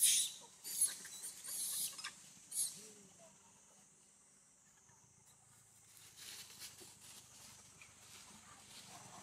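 A few short, scratchy rustling noises in the first three seconds, over a steady high-pitched insect drone.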